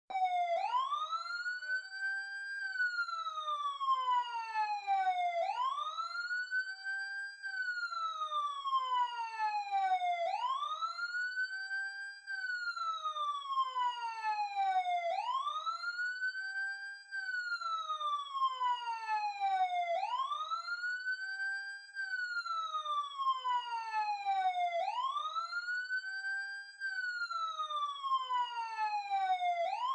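Emergency siren sounding a slow wail: each cycle rises quickly in pitch, then slides down more slowly, repeating about every five seconds without a break.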